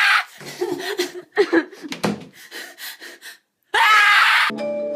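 A woman screaming in fright, then gasping and whimpering, and screaming again near the end.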